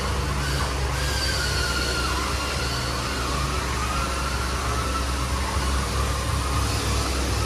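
Steady low mechanical hum with a faint whine that wavers slightly in pitch.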